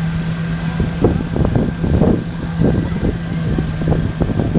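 Small vintage Ferguson tractor engine putting along, chugging unevenly over a steady hum.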